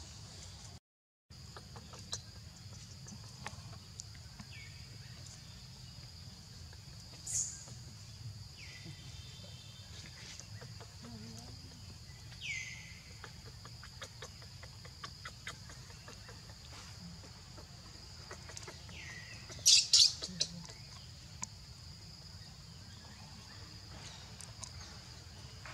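A few short, high calls that fall in pitch, spaced several seconds apart, with a louder burst of calls about twenty seconds in, over a steady high-pitched hum and low background rumble.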